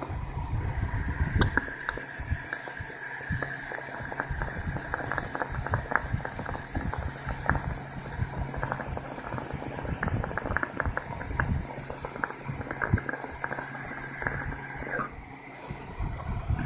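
Water bubbling and crackling inside a water bottle, a bong-like bubbling over a steady hiss, which stops about fifteen seconds in.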